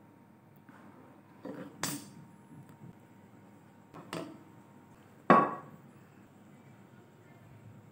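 A wooden spoon knocking against a serving bowl while curry is dished into it: a few short knocks, the loudest about five seconds in.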